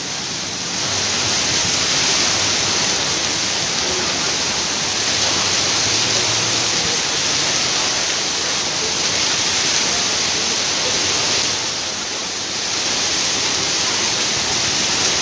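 Heavy rain pouring down onto a flooded street, a steady hiss that eases slightly about twelve seconds in.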